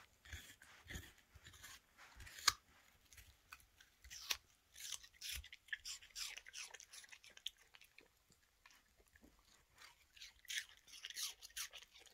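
A toy terrier chewing and crunching pieces of raw apple: many short, irregular crunches, the sharpest about two and a half seconds in.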